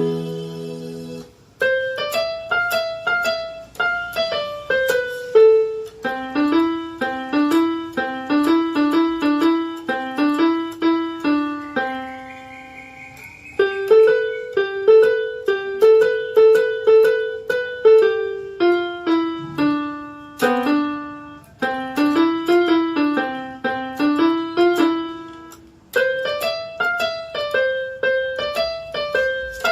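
Electronic keyboard played with a piano sound: a simple melody of single struck notes at a steady pace. The notes come in short phrases with brief pauses between them.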